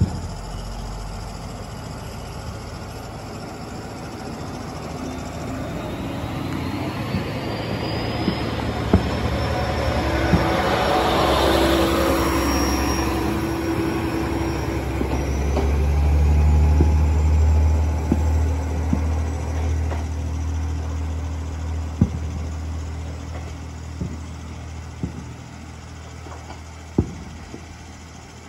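Single-car KiHa 40 diesel railcar pulling away from the platform: its diesel engine rumble and wheel noise swell as it moves off and passes close, with a thin whine rising in pitch, then fade as it leaves. A few sharp cracks sound in the last third.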